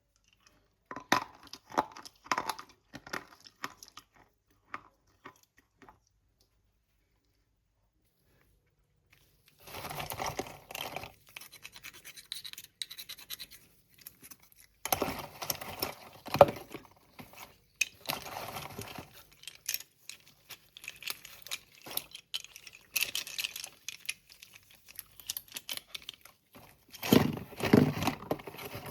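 Slate pencils and their packaging handled close to the microphone. Scattered small clicks and taps come first, then a pause of about three seconds, then repeated bouts of scratching and crackling rustle with sharp ticks, the fullest and loudest near the end.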